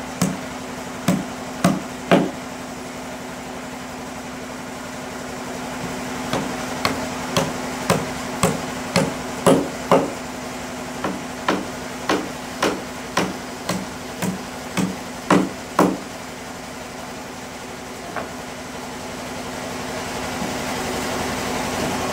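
Hand hammer striking wood: a few blows early on, a pause, then a long run of steady blows about two a second, each with a short ring. The blows stop about three-quarters of the way through. A steady low machine hum runs underneath.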